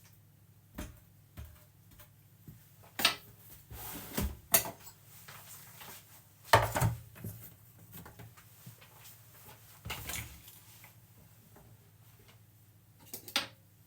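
Scattered clicks and knocks of a food processor being taken apart, its lid and bowl unlocked and handled. A handful of sharp knocks, the loudest about six and a half seconds in, with quieter handling noise between.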